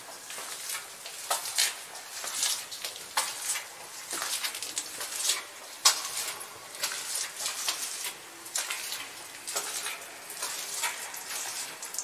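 Footsteps on small loose rocks on a cave floor, an uneven run of crisp steps with a reverberant echo.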